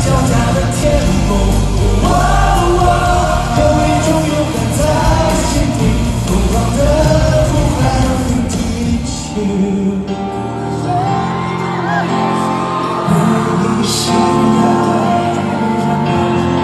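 A male singer's pop song performed live with full band backing over a concert PA. About nine seconds in, the bass drops out and the music thins to a quieter, sustained passage.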